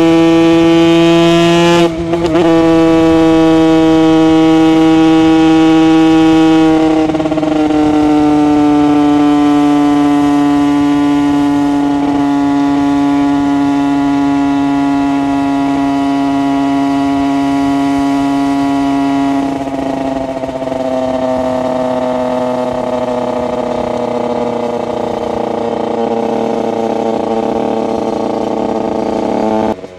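Single-cylinder two-stroke engine of a TM SMR 125 supermoto through an HGS aftermarket exhaust, held at high revs under way with a steady, high, buzzing note. The pitch steps down a little a few times and sinks slowly. Near the end the throttle closes and the sound drops off abruptly.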